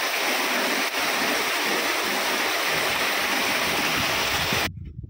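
Water gushing in a steady rush, as from horizontal bores drilled into a well's wall, cutting off suddenly near the end.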